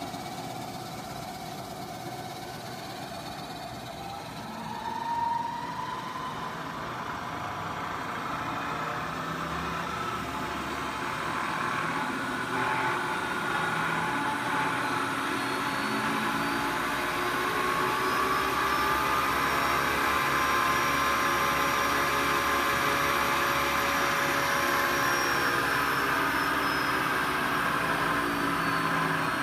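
Acra vertical knee mill's 3-horsepower spindle motor and variable-speed head starting up and running. It climbs gradually in pitch and grows louder as the spindle speed is raised with the speed-change handwheel, then eases back down a little near the end.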